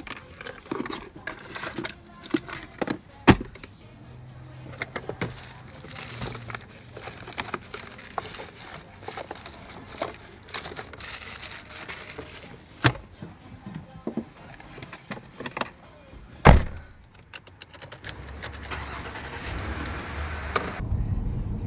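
Rustling and crinkling of a plastic wrapper handled inside a car, with small clicks and three sharp knocks. A low steady hum comes in near the end and grows louder.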